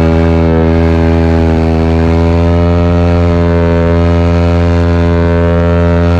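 Motorcycle engine running at steady revs, its pitch edging up slightly a couple of seconds in.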